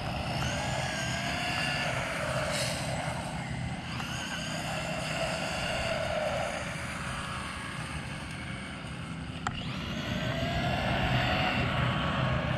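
Brushless electric motors of two racing RC cars, a 1/14 Team Associated Reflex 14B buggy and a 1/10 Redcat Blackout XTE Pro monster truck, whining as they drive, the pitch rising and falling with the throttle in swells, over a steady low rumble. A single sharp click about nine and a half seconds in.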